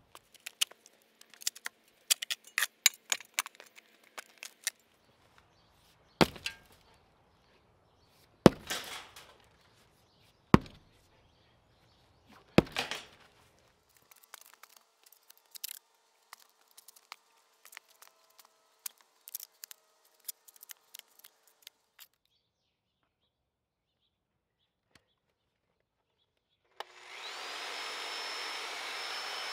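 Wood being handled: scattered wooden clicks and crackles, and four sharp knocks about two seconds apart. Near the end a machine starts up and runs steadily.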